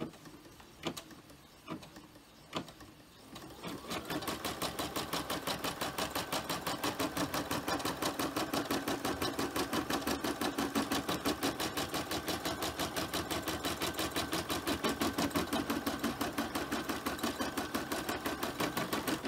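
Brother sewing and embroidery machine stitching out a large outline square in the hoop. A few light clicks come first, then about four seconds in the needle settles into a fast, even stitching rhythm that stops at the end.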